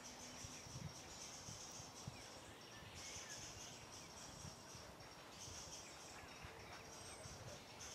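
Faint outdoor ambience: a high, thin trill that repeats in stretches about a second long, with a few soft chirps above it.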